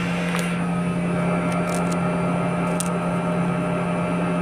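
Steady drone of pump-room machinery: electric pumps running with a constant low hum and a rushing noise over it, with a few light clicks.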